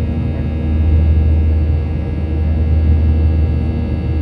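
Boeing 737-800 cabin noise while climbing out after takeoff: the CFM56-7B turbofans' steady low rumble with several steady whining tones above it.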